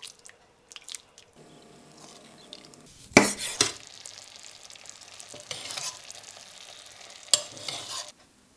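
A metal spoon stirring and scraping through a thick, sizzling mushroom and soy sauce in a stainless steel pan, with a few sharp knocks of the spoon against the pan about three seconds in and near the end.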